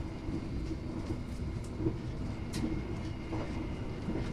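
Passenger train running, heard inside the carriage: a steady low rumble of the wheels on the track, with a few light clicks, the sharpest a little past halfway.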